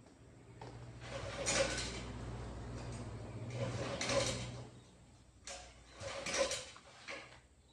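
Engine parts being handled during assembly: four or five short scraping, sliding strokes over a low steady hum.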